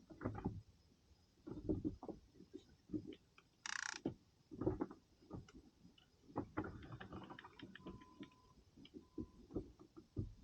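Irregular soft knocks and bumps, roughly one a second, with a few sharp clicks near the middle and a short hiss about four seconds in: handling noise from the angler moving about in a small inflatable boat.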